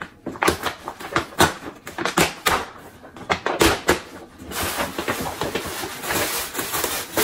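Paper gift bag being handled and opened, with crackling paper rustles, then a steady crinkle of tissue paper being pulled out from about halfway in.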